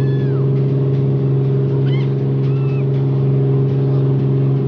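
Bumboat's inboard diesel engine running at a steady cruising drone, with water churning in the wake. A couple of brief high-pitched calls come about two seconds in.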